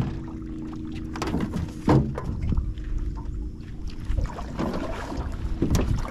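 Small outboard motor idling in neutral with a steady hum, with several sharp knocks and clatters on the aluminium boat's hull, a cluster of them in the second half.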